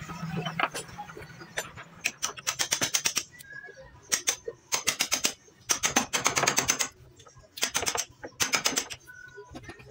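Small hammer tapping a steel chisel in quick bursts of rapid strikes, paring out a joint in an ulin (Borneo ironwood) beam; about six bursts follow one another after the first two seconds.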